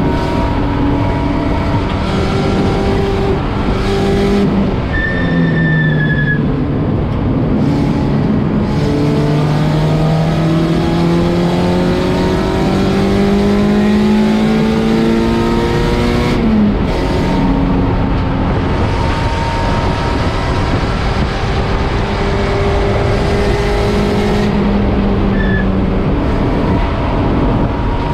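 Race car engine running hard on track. Its pitch dips about five seconds in, climbs steadily for about ten seconds, falls sharply about sixteen seconds in, then holds steadier, over a constant rushing noise. Two brief high squeaks come about six seconds in and near the end.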